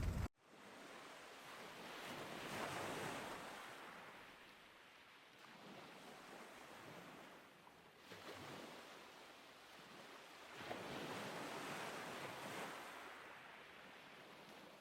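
Faint outdoor rush of wind and distant water, rising and easing in slow swells every few seconds.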